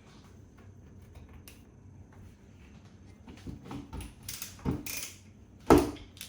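A few clicks and knocks of hardware being handled while a rail is offered up to a wall, starting about three seconds in, with one louder sharp knock shortly before the end.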